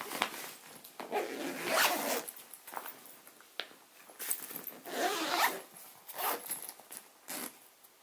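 Zipper of a Ju-Ju-Be Be Right Back backpack diaper bag being drawn closed around its main compartment in several rasping pulls, the two longest about a second in and near the middle.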